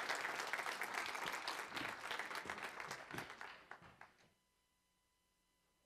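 Audience applauding, a dense patter of many hands that thins out and stops about four seconds in, leaving near silence.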